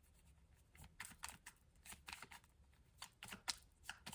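Faint, irregular soft clicks and flicks of a tarot deck being shuffled by hand, the cards slapping and sliding against each other.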